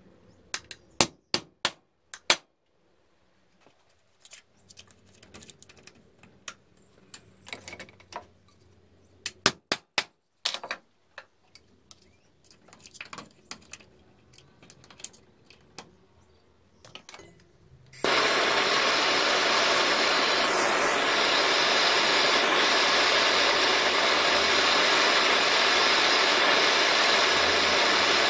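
Sharp metal clicks and taps as a screwdriver and pliers work at the swivel pad on a small vice's clamp screw. About two-thirds of the way in, a gas blowtorch flame starts abruptly and burns with a steady, loud rushing noise while it heats the pad.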